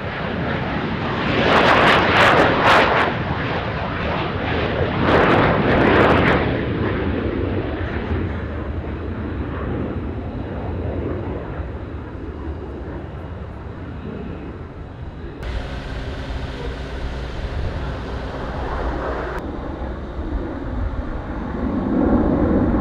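AV-8B Harrier II's Rolls-Royce Pegasus turbofan at high thrust as the jet lifts off and climbs away, with two loud crackling surges in the first few seconds. The sound changes abruptly about two-thirds of the way through and swells into a deep rumble near the end.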